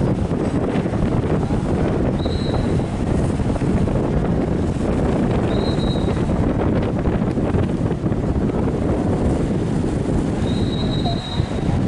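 Wind buffeting the microphone, a steady rumbling rush that flutters in level, with three brief faint high-pitched tones a few seconds apart.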